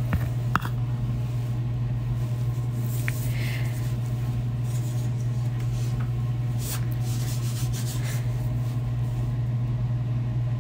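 A steady low hum with no words over it. About half a second in come a couple of sharp clicks, and later a few brief soft hisses.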